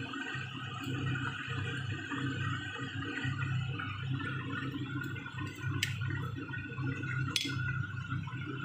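Soup boiling hard in a stainless steel pot on a stove, a steady bubbling under a constant hum, with two sharp clicks about six and seven and a half seconds in.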